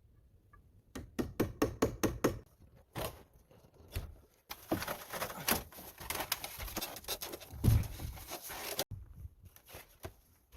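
Hand-tool work on timber: a quick run of about eight sharp knocks, a single knock, then several seconds of rasping scraping with a heavy thud near the end.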